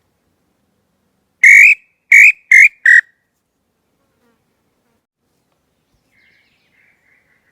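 Wooden pé-roxo bird call, made of violeta wood, blown in four loud, short whistled notes in quick succession, each sliding slightly upward, the last two shorter. Near the end a faint whistle follows at about the same pitch.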